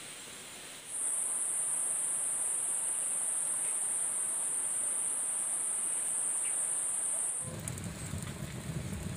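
A loud, steady, high-pitched insect buzz starts about a second in and cuts off suddenly about seven seconds in. A low rumble follows near the end.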